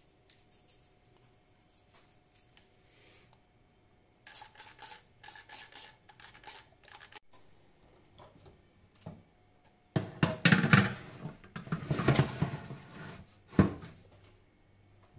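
Kitchen food-preparation handling sounds: a run of short scraping and rubbing strokes from about four seconds in, then a louder stretch of handling noise lasting a few seconds near the end, while aubergines are readied for the oven.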